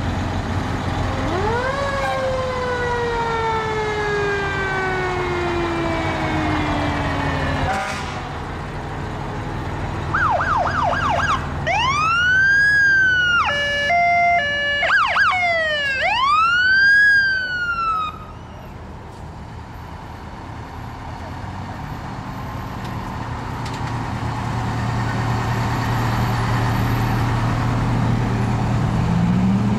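Fire truck sirens over the steady running of the trucks' engines. A siren winds up and then slowly falls in pitch over about six seconds. A few seconds later another siren cycles quickly through a rapid yelp, long rising-and-falling wails and an alternating two-tone hi-lo for about eight seconds. Engine noise grows louder near the end as a truck comes past.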